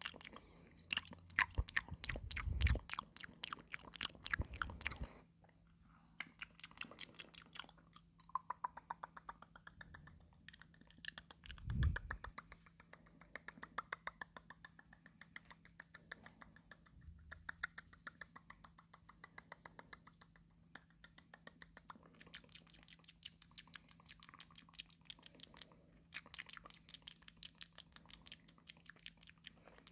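Close-miked crunching and chewing of raw cucumber with wet mouth sounds: a dense run of crisp clicks. It is louder over the first few seconds and again near the end, with a few low thuds in the first half.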